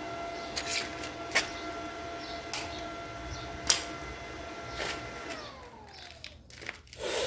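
A steady machine whine, like an electric motor running, that winds down in pitch about five seconds in as it spins down. A handful of sharp clicks come through it, and a short, louder rustle comes near the end.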